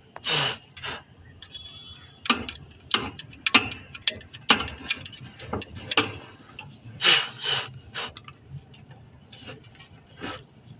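Irregular metallic clicks, taps and rattles of hand tools and wire terminals being worked on an air-conditioner compressor's terminal post, with a few louder scuffing rustles.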